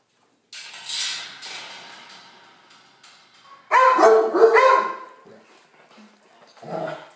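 A dog barking: a quick run of about three loud barks in the middle, then one more near the end, after a burst of clattering noise in the first seconds.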